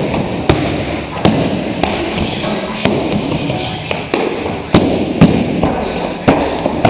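Gloved strikes landing on a handheld padded strike shield: about ten sharp thuds in quick, uneven succession, roughly one every half second to second.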